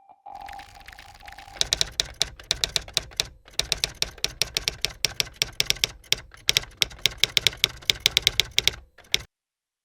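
A steady tone for the first second and a half, then rapid, uneven sharp clicks like typing on keys, which stop suddenly about nine seconds in.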